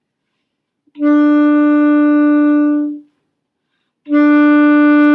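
Saxophone playing a long, steady written B, fingered with the first finger only, as a beginner's first easy note. The note is played twice, each held about two seconds: once starting about a second in, and again starting about four seconds in.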